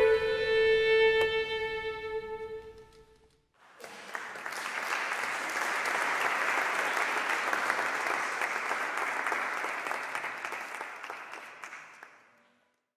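The final note of the music is held and fades out over about three seconds. After a short pause, an audience applauds for about eight seconds, then the applause fades out near the end.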